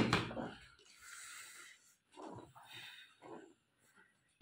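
A partly filled plastic water bottle landing on a table with a thud that dies away, then soft shuffling and faint voice sounds; a second bottle flip lands with another thud at the very end.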